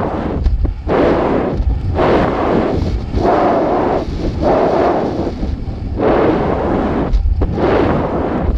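Wind buffeting the microphone of a weather-balloon payload camera: loud gusty rushing over a constant low rumble, swelling and fading about every second or so.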